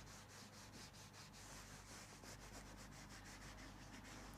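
Near silence with faint, irregular rubbing strokes.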